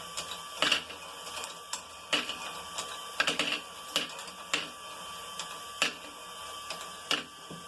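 Motorised LEGO Technic ball-sweeper module running: a steady motor and gear whir with irregular sharp clacks of plastic balls and parts, about one or two a second. The running noise stops abruptly near the end.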